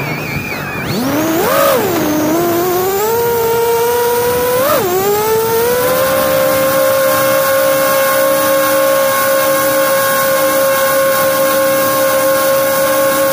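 Electric motors and propellers of a Flywoo Explorer LR FPV quadcopter, heard through its onboard camera: a buzzing whine whose pitch follows the throttle. It drops sharply as the throttle is cut in a roll, swells about two seconds in, blips near five seconds, then holds a steady, higher pitch as the drone climbs.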